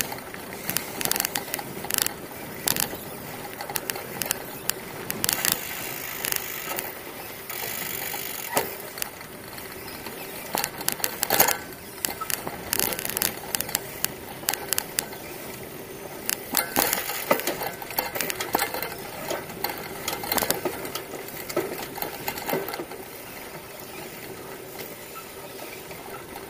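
Bicycle ridden over a rutted dirt track: tyre noise with frequent irregular rattles and knocks from the bike and its camera mount as it jolts over the bumps.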